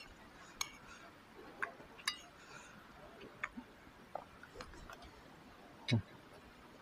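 Quiet eating sounds from someone eating by hand off a plate: faint chewing and scattered small clicks and clinks of the plate. A short, louder low sound comes about six seconds in.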